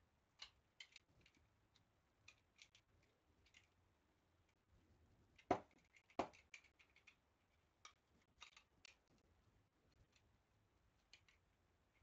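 A small hand cutting tool snipping and trimming thin wooden sticks of a model kit: quiet scattered short snips and clicks, with two sharper, louder cuts about halfway through.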